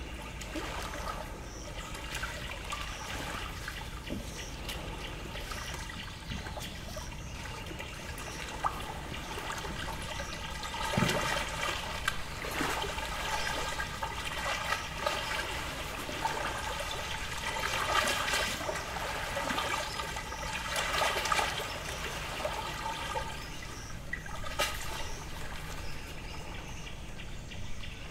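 Small lake waves lapping and trickling against the shore in a steady wash, with louder bursts of bird calls about eleven, eighteen and twenty-one seconds in, and a couple of single sharp knocks.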